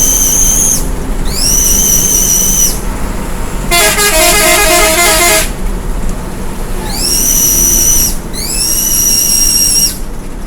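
Bus telolet air horns sounding: four high, sustained toots that rise into each note and sag at the end. Between the second and third toots, about four seconds in, a rapid multi-note telolet melody plays for under two seconds, over a steady road rumble.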